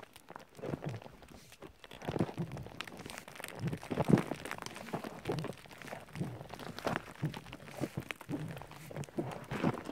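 Irregular crunching and scuffing steps on gravelly, rocky ground, several a second at times, unevenly spaced.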